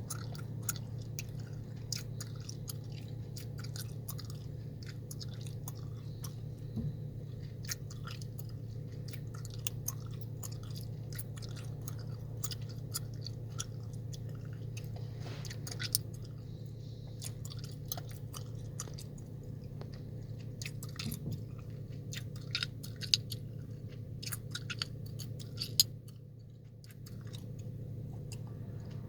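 Chewing gum being chewed close to the microphone, with many sharp smacks and clicks, over a steady low hum inside a car. The hum dips briefly near the end.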